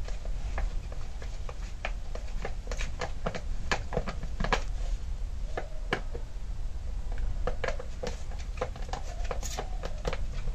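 Screwdriver working the screws of a gasoline chainsaw's plastic top cover: a run of irregular small clicks and knocks of metal on plastic as the screws are undone, over a low steady hum.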